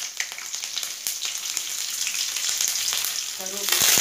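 Green chillies sizzling in hot oil in an aluminium kadai, with scattered crackles. Near the end the sizzle swells sharply louder as curry leaves hit the oil.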